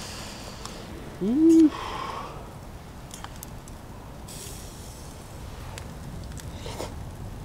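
Charcoal crackling faintly under a grill, with a few light clicks. About a second in comes a short rising hum from a man's voice.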